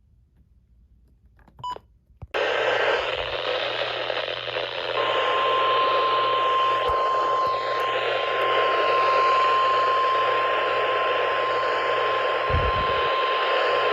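Weather radio receiver: a short blip, then static hiss from about two seconds in, and from about five seconds in a single steady high tone that holds. This is the NOAA Weather Radio 1050 Hz warning alarm tone that precedes a warning broadcast.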